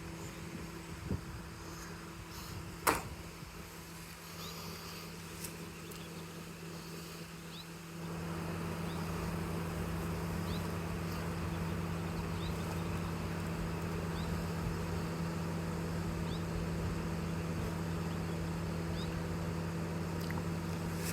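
Honey bee swarm humming steadily at a low pitch, growing louder about eight seconds in. There is a single sharp click about three seconds in.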